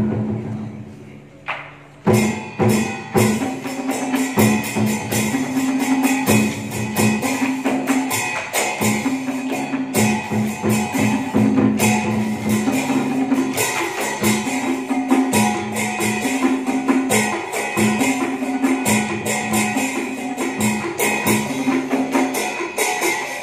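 Traditional Vietnamese water-puppet theatre ensemble playing live: quick, dense percussion with steady melody notes over it. The music dies down at the start and a new lively passage comes in about two seconds in.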